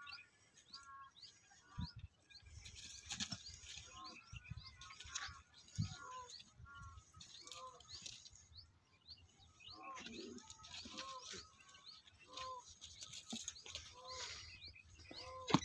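Small birds chirping: a stream of short rising chirps and repeated arched calls, with a couple of dull low thumps.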